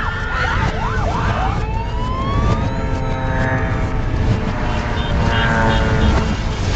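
Street sound played backwards: a steady low rumble of vehicle noise with several gliding, siren-like tones over it.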